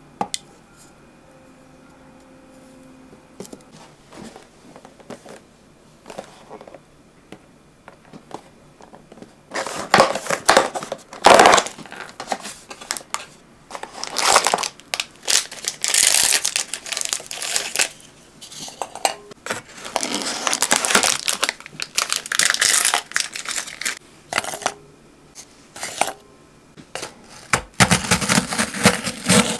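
Cookies being crushed into fine crumbs: a few faint clicks at first, then repeated noisy crushing bursts from about a third of the way in.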